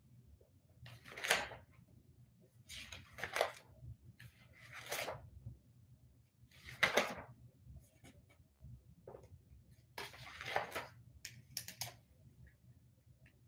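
Paper pages of a ring binder rustling as they are handled and turned: five soft swishes about two seconds apart, with a few light taps in between.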